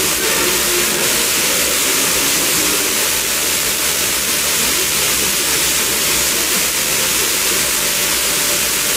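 Steady FM receiver hiss from an SDR tuned to 94.2 MHz, with only faint traces of the France Musique broadcast under it: the signal reflected off a passing airliner (aircraft scatter) has faded back into the noise.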